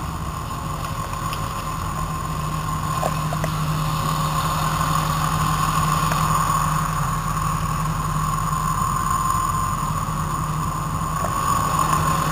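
Fire engine running steadily, a low drone with a steady high whine on top, growing a little louder after about two seconds.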